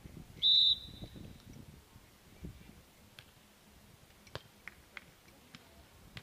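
A referee's whistle blown once, a short, sharp, steady high blast about half a second in, followed by a few faint scattered clicks.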